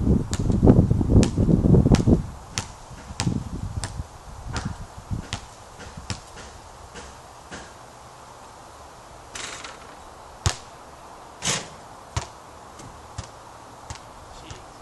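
Gusty wind rumbling on the microphone for the first two seconds, then scattered sharp knocks and taps. Near the end a basketball shot goes through the net with a short rush of noise, and the ball bounces on the wooden deck.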